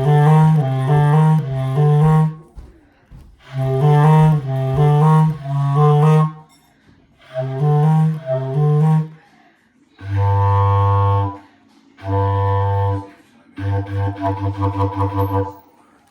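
A low wind instrument played solo, running through a band part: short phrases of detached repeated notes broken by brief pauses. Near the end come two long held low notes, then a quick run of about six repeated notes a second on a low pitch.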